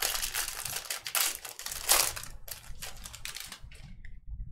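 Trading card packaging being handled: a run of rapid crinkling crackles lasting about four seconds, stopping shortly before the end.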